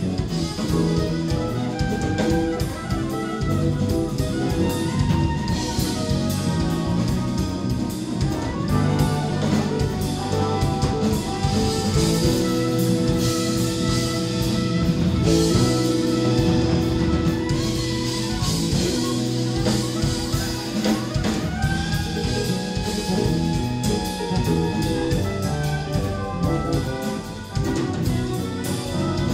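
Jazz-rock fusion band playing live: drum kit, electric bass, electric guitar and soprano saxophone, with long held notes through the middle.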